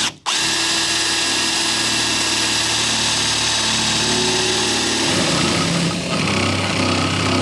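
Power drill boring a 1-inch hole through a wooden 2x2 with a spade bit, running steadily at speed. The sound turns rougher about five seconds in.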